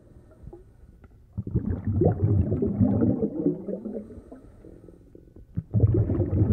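Wind buffeting a phone's microphone: an irregular low rumble that comes in two strong gusts, the first starting about a second and a half in and the second near the end.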